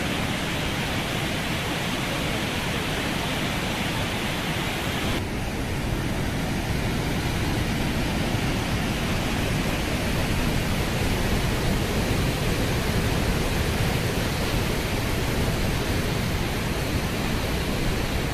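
Water from the HE Rama reservoir overflowing the dam's spillway crest and plunging into the pit below: a steady, loud rushing of falling water, growing a little louder in the second half.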